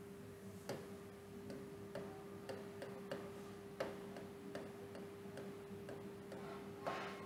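Faint, irregular light taps and ticks of writing on a board, about two a second, with a short scrape just before the end, over a steady low hum.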